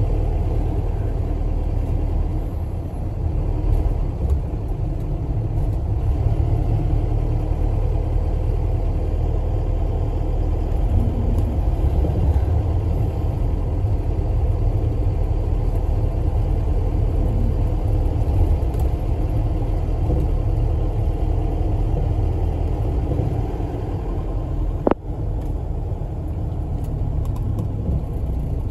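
Community bus heard from inside the cabin while under way: a steady low rumble of engine and road noise. A single sharp click comes near the end.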